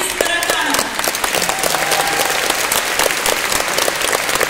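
Concert-hall audience applauding: dense, steady clapping, with a few voices briefly calling out over it near the start.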